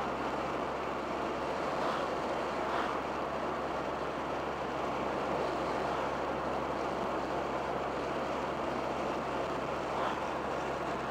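A turbocharged 1987 Dodge Daytona Shelby Z cruising at a steady speed: even road and wind noise with the engine running underneath.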